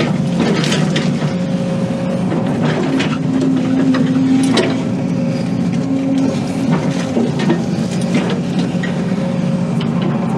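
Diesel excavator engine running under load, its pitch rising for a couple of seconds about three seconds in, with scattered sharp cracks and knocks from wood and the machine, the loudest about four and a half seconds in.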